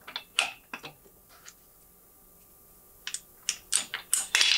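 Light clicks and clinks of a swivel caster wheel's stem and metal socket being handled and fitted onto a C-stand leg. A few taps come in the first second and a half, then a pause, then a quicker run of clicks that is loudest near the end.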